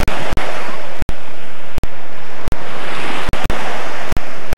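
Waves washing onto a sandy beach: a loud, steady rush that swells about three seconds in. It is broken by brief dropouts in the sound about twice a second.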